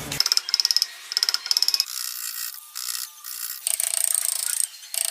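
Rapid mechanical clicking in two short bursts, like a ratchet, followed by steadier, hissing workshop noise that stops and starts.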